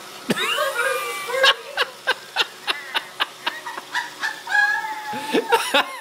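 Laughter: a run of short rhythmic bursts, about four a second, among high gliding voice sounds.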